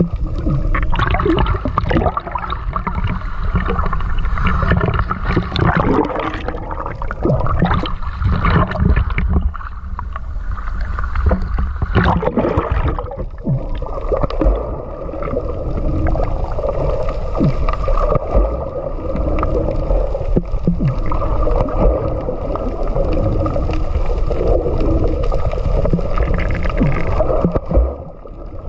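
Water heard through a submerged camera: sloshing and bubbling with many small knocks for the first dozen seconds or so, then a steadier underwater drone.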